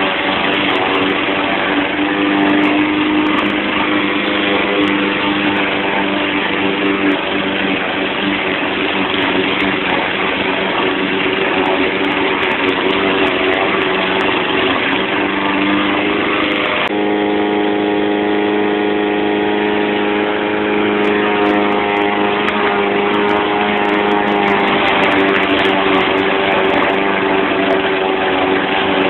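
The 159cc PowerMore gas engine of a YardMan walk-behind push mower runs steadily at mowing speed. About halfway through, the sound turns cleaner and its engine tones stand out more clearly.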